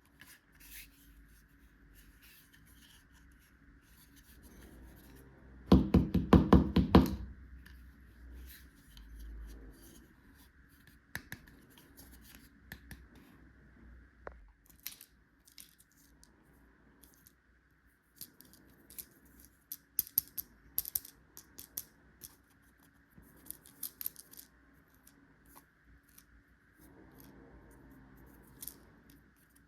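Small plastic toy tools and packaging being handled and unpacked: scattered clicks, taps and scrapes. About six seconds in comes a loud, rapid rattle lasting just over a second.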